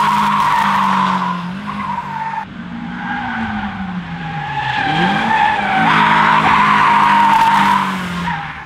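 Tyres of a Nissan S13 with a welded differential squealing through two long slides, the first ending about two seconds in and the second running from about three seconds until near the end, with the engine note rising and falling underneath.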